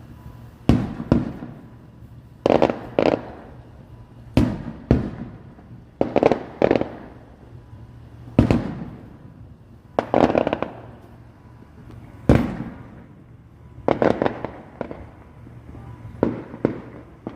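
Fireworks going off in a steady series of loud bangs, most coming in pairs about half a second apart, each followed by a short fading rumble, recurring every two seconds or so.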